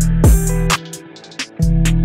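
Background music with an electronic beat: deep kick drums, crisp percussion and held bass and melody notes, which drop out for under a second in the middle before the beat comes back.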